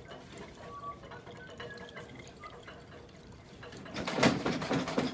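Liquid swirling in a glass Erlenmeyer flask during a titration, mostly faint, then a loud burst of sloshing with small sharp clinks about four seconds in.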